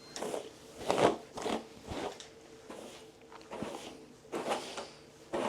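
Light rustling and crinkling from something being handled, in a few short irregular bursts.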